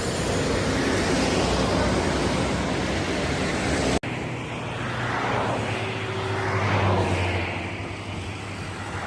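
Buses passing on a road: a steady rush of engine and tyre noise. It breaks off sharply about four seconds in, then a low engine hum comes back with tyre noise that rises and falls as a vehicle goes by.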